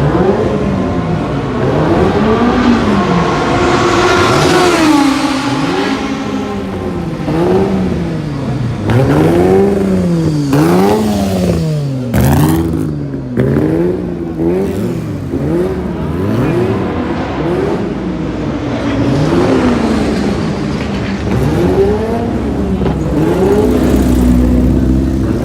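Racing car engine revved again and again, its pitch rising and falling smoothly about once a second, with a brief sharp noise about halfway through.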